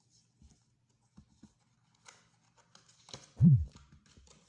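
Phone-box contents and case being handled: a few light clicks, then rustling, and one loud low thump about three and a half seconds in.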